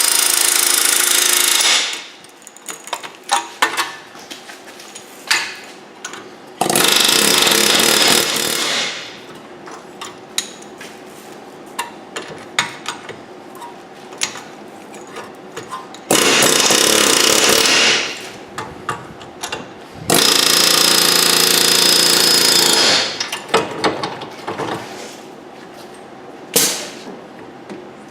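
Pneumatic air hammer with a chisel bit, hammering in four bursts of two to three seconds and a short one near the end, with light metal clinks between. It is chiselling a corroded front wheel bearing loose.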